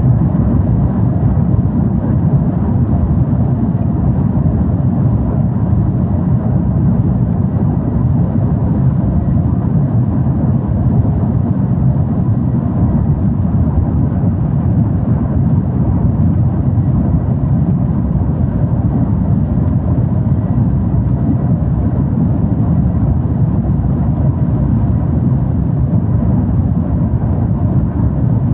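Steady low rumble inside the cabin of an Airbus A330-200 taxiing on the ground, its engines running at low power. The noise holds level throughout with no build-up.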